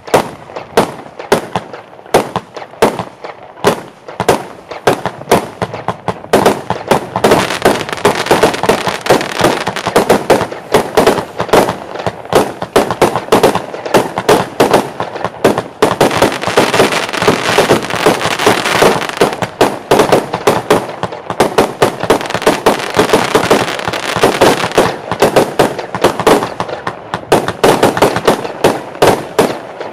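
Jorge Tarantula 100-shot, 20 mm rapid-fire firework battery going off: a continuous train of sharp shots and bursts. The shots come at about three a second at first and thicken into dense, almost unbroken firing from about six seconds in.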